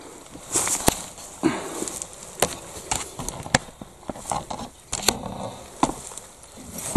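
Dry grass, leaves and twigs crackling and rustling underfoot as someone steps around, with irregular sharp snaps and clicks.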